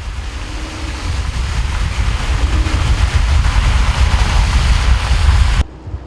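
Loud rumbling noise with a hiss over it, building steadily, then cutting off abruptly near the end.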